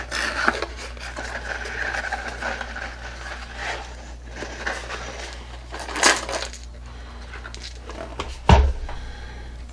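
A box of Federal Syntech 9mm cartridges being opened and handled: rustling and scraping, with the cartridges clinking against each other. There is a sharper click about six seconds in and a heavier knock a little after eight seconds.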